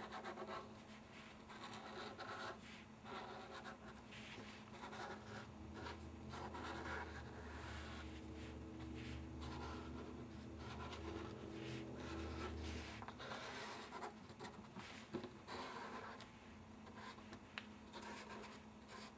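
Glue pen tip scratching and dabbing along a thin paper cut-out on a cutting mat: faint, irregular strokes like writing.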